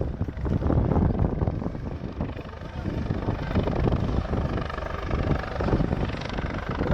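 Police helicopter's rotor and engines running close by, with a dense, low, pulsing beat from the rotor.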